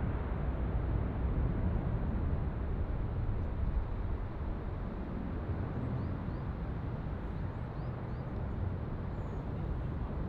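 Jet engines of a Boeing 787-9, its twin Rolls-Royce Trent 1000s at takeoff power as the airliner climbs away: a steady low rumble that eases a little in the second half.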